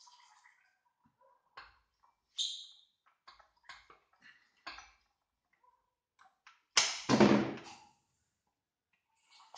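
Scattered knocks and clinks from tools and engine parts being handled, with a ringing metallic ping a couple of seconds in. About seven seconds in comes a louder clatter lasting about a second.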